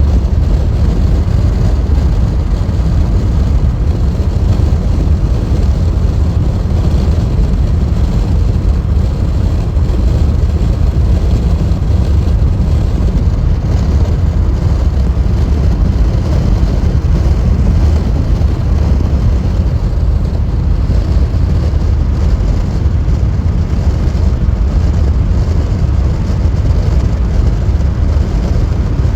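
Steady low tyre and road rumble heard inside a car cruising on a freeway.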